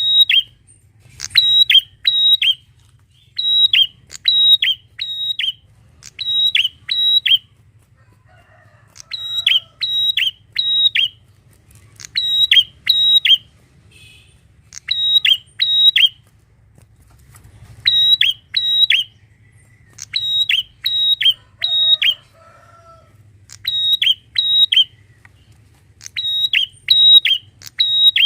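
Prinia (prenjak) calling: loud, sharp, high notes in quick clusters of two to four, the clusters repeated about once a second with a few short pauses.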